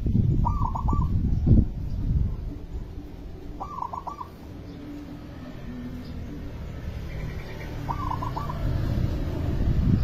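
Zebra dove (perkutut) cooing: three short phrases of quick staccato notes, about three to four seconds apart. A low rumble runs underneath, loudest in the first two seconds.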